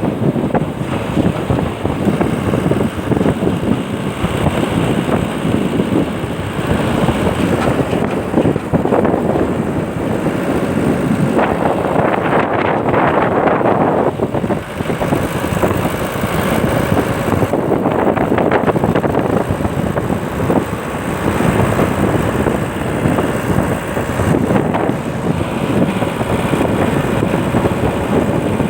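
Wind rushing over the microphone in a moving car, swelling and easing in gusts every few seconds, over the car's engine and road noise.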